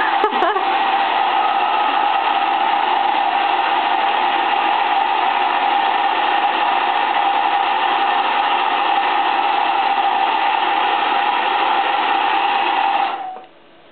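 Handheld hair dryer running steadily, blowing into a canvas sneaker: an even rush of air with a steady tone over it. It is switched off about a second before the end.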